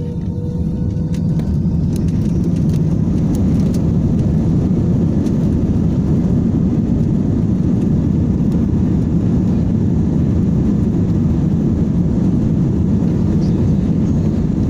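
Airliner jet engines at takeoff power, heard from inside the cabin during the takeoff roll: a deep, steady roar that builds over the first couple of seconds and then holds. A faint whine fades out early on.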